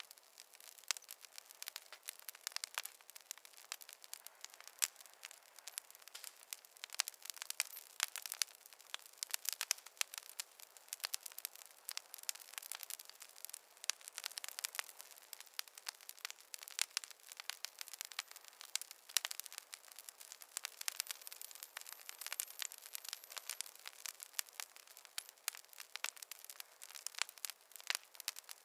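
Wood fire crackling in a fireplace: a dense, irregular run of sharp pops and snaps over a faint hiss, with no low rumble.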